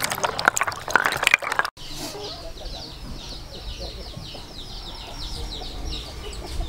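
Water splashing and sloshing in a plastic basin as hands scrub sea snail shells, cut off abruptly under two seconds in. Then birds chirping, a steady run of short, quick, high chirps with fainter lower calls beneath.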